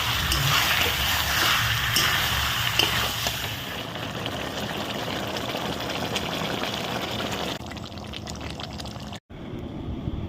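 Chicken curry sizzling and bubbling in a pan, with a few light clicks of a stirring spoon. It turns quieter about three-quarters of the way through. Near the end the sound drops out briefly and cuts to a low rumble.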